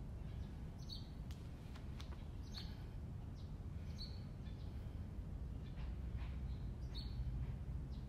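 A small bird chirping, short high notes every second or two, over a steady low outdoor rumble.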